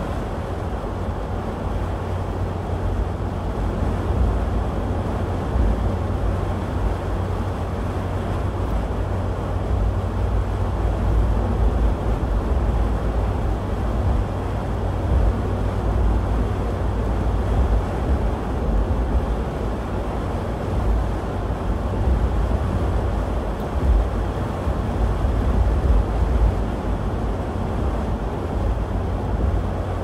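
Steady low rumble of a vehicle driving at highway speed, heard from inside the cabin: engine and tyre noise on a wet, snow-covered road.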